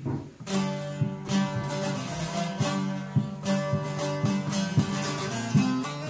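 A plucked string instrument strummed in a steady rhythm, playing the instrumental opening of a Kurdish song.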